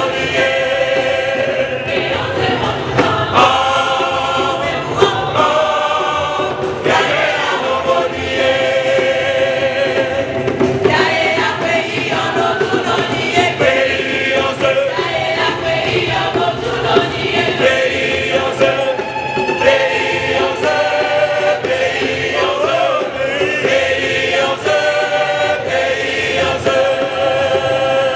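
Church choir singing a hymn, with long held notes.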